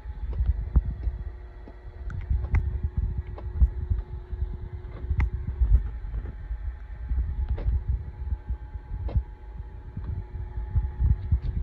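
Bridgeport Series II milling machine running: a steady mechanical hum over an uneven low throbbing rumble, with a few light clicks. One of the hum's tones stops about halfway through.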